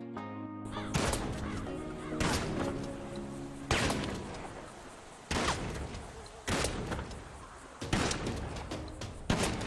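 About seven sharp bangs, each ringing out and fading over a second or so, coming roughly every second and a half over background music with held tones.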